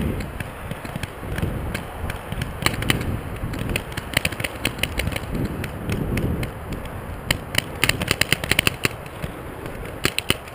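Paintball markers firing: scattered single pops, then rapid strings of shots between about seven and nine seconds in, over a low rumble of wind and movement on the microphone.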